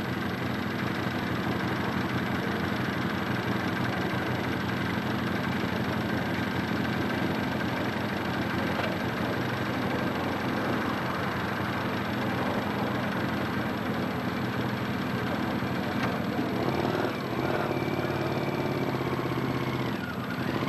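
Engine of an open three-wheeled car running at low revs, a steady idle as the car creeps forward and turns on gravel.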